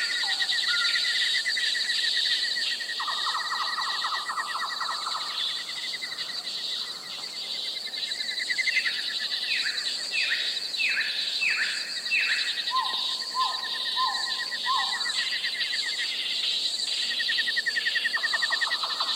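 Night jungle ambience: a dense chorus of insects chirring and trilling continuously, with other animals calling over it. About halfway through comes a run of five calls, each falling in pitch, followed by four shorter, lower calls.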